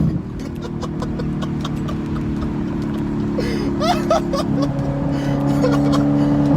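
BMW E92 M3's V8, breathing through a near-straight-piped exhaust with an Akrapovič rear muffler, drops off throttle after a hard pull and then runs at a steady engine speed. A scatter of faint crackles comes through the exhaust.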